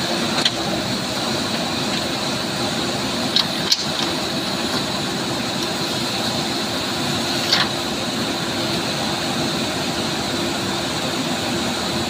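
JCB 3DX backhoe loader's diesel engine running steadily under load while the backhoe digs, with a few short sharp clicks: one near the start, two about three and a half seconds in, and one about seven and a half seconds in.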